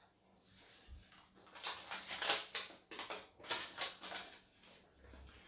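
Paper name cards rustling and clicking as they are picked through by hand, in a run of short, irregular rustles.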